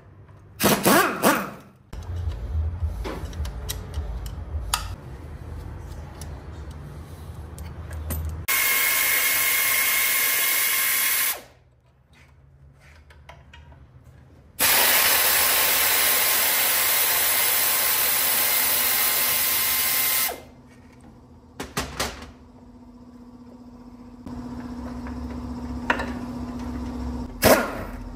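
A power tool running in two steady, even bursts, the first about three seconds long and the second about six. A few sharp knocks come before, between and after the bursts, and a lower hum runs before the first one.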